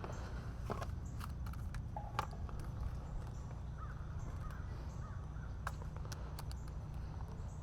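Faint bird calls over a steady low hum, with a few light clicks.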